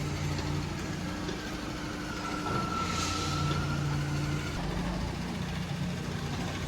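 A heavy vehicle engine idling steadily, with a faint whine between about two and four seconds in and a short hiss about three seconds in.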